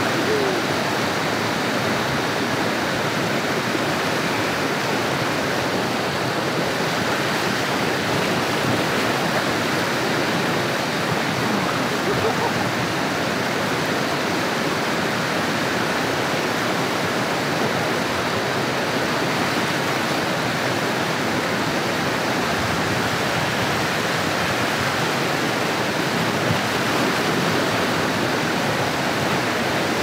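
Steady, loud rush of water cascading over rocks at a jungle waterfall.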